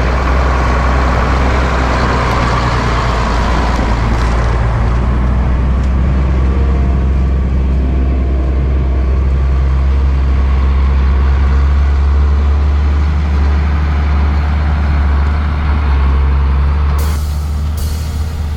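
Large diesel farm tractor engine running steadily with a deep, even hum.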